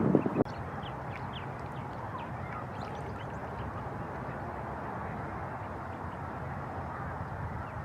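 Mallards calling: a short, loud quack right at the start, then faint, short high peeps, typical of mallard ducklings, over a steady background hum.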